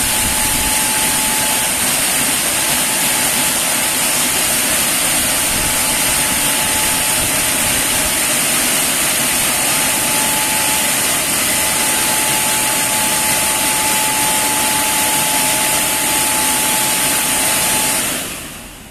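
Automatic rollover car wash's air-dryer blowers running steadily, a loud rush of air with a thin whine and a high whistle, shutting off just before the end.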